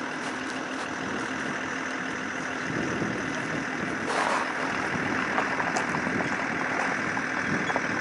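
Steady hum of an idling engine, with a brief rush of noise about four seconds in.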